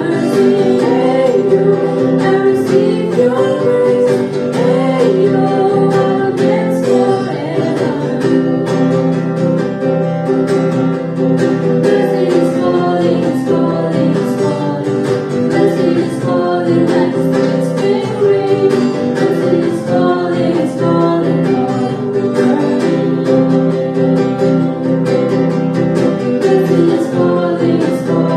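Acoustic guitar strummed steadily while a girl and two boys sing a song together.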